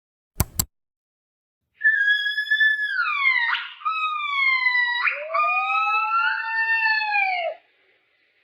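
An animal's high-pitched calls, several long overlapping cries that slide down in pitch, preceded by a quick double click.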